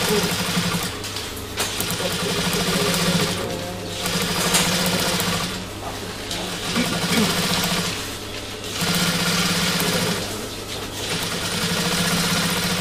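Sewing machine stitching a seam in runs of about two seconds, stopping briefly between runs as the fabric is guided under the presser foot.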